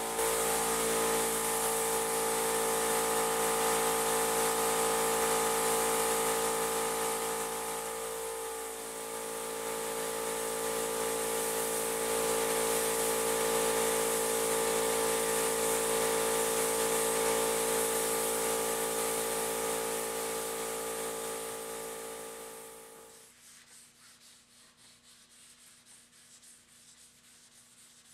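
Gravity-feed paint spray gun spraying: a steady hiss of air over a steady machine hum, easing off briefly near the middle. Toward the end it cuts off suddenly, leaving faint rubbing of a pad on a helmet shell.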